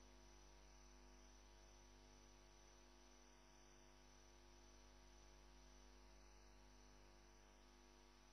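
Near silence: only a faint, steady electrical hum and hiss.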